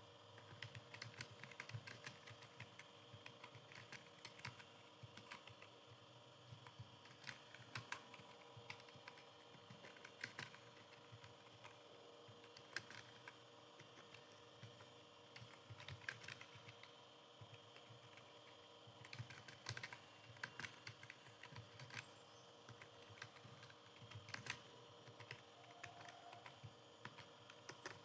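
Computer keyboard typing: faint, quick, irregular keystrokes in bursts with short pauses, as in a timed typing test.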